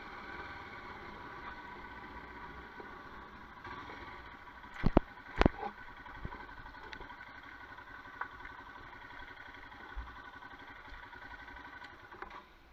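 Royal Enfield Himalayan single-cylinder motorcycle running steadily along a gravel lane, with a few sharp knocks about five seconds in.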